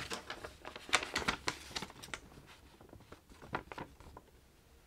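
A sheet of paper rustling and crackling as it is picked up and handled: a quick run of crisp rustles over the first two seconds, then a few fainter ones.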